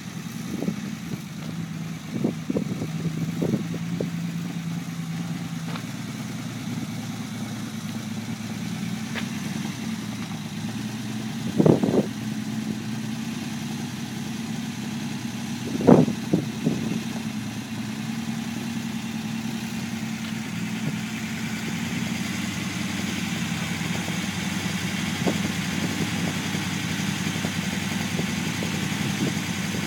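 Unimog 404's petrol six-cylinder engine idling steadily just after its first start following a rebuild. It is broken by two brief louder thumps, about twelve and sixteen seconds in.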